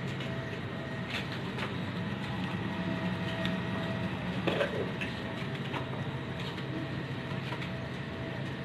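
Steady low hum and hiss of a street food stall's equipment and street traffic, with a few light clicks and clinks.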